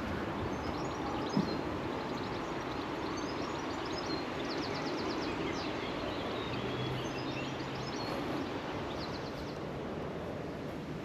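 Steady rush of flowing river water, with small birds chirping and giving quick trills above it several times.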